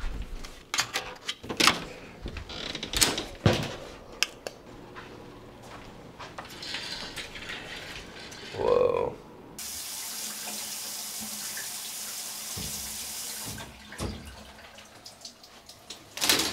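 Clicks and knocks of things being handled, then a shower running with a steady hiss for about four seconds before it is shut off abruptly.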